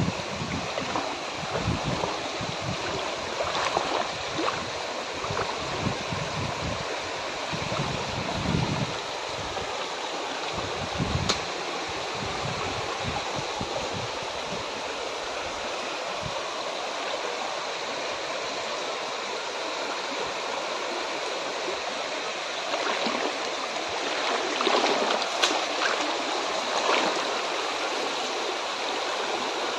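Muddy floodwater flowing past fence posts, a steady rushing of water, with a few low thumps in the first ten seconds and swelling a little louder near the end.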